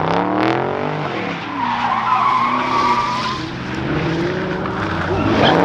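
A car engine revving up and down hard while its tyres squeal and spin in a burnout. A sustained high tyre squeal stands out from about two seconds in and lasts just over a second.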